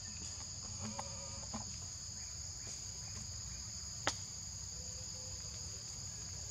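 Steady high-pitched drone of insects in the forest undergrowth, holding two even pitches, over a low rumble. A single sharp click about four seconds in.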